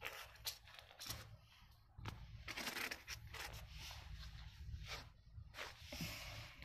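Handling noise from a metal water pump being turned over by hand on a tabletop: scattered light clicks and knocks with scraping, rustling stretches, busiest about two and a half seconds in and again near the end.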